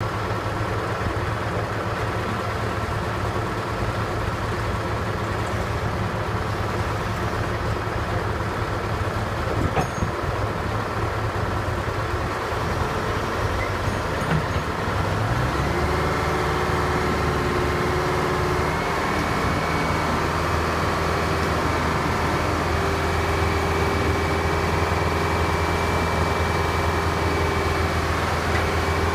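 Texoma 700 drill rig's engine running steadily. About halfway through it speeds up and holds the higher speed, and a steady whine joins it.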